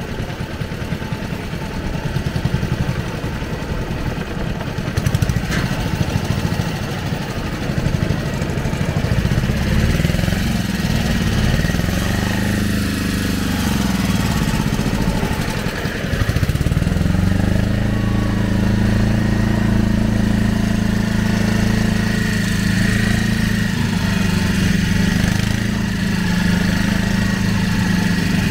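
Small engine of a wooden riverboat's long-shaft outboard running. It runs unevenly at first, speeds up and slows down a couple of times about ten to sixteen seconds in, then holds a steady, higher speed.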